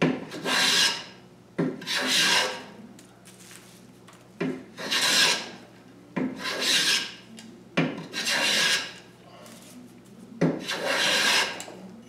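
Vintage Stanley No. 3 Type 15 corrugated-bottom bench plane planing the edge of a red oak board and taking curled shavings. Six strokes, each a sharp bite as the iron enters the wood followed by about a second of hissing cut.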